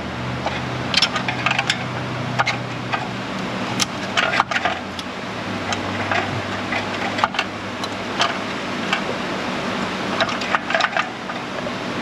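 Metal exhaust heat shield being worked loose by hand, rattling and scraping with scattered sharp clicks and knocks, over a steady low hum.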